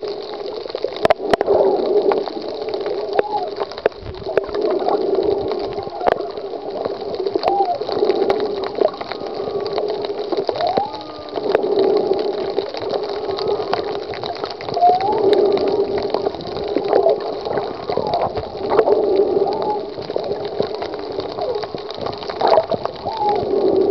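Muffled underwater water noise heard by a submerged camera: gurgling and rushing that swells about every three to four seconds, with scattered sharp clicks.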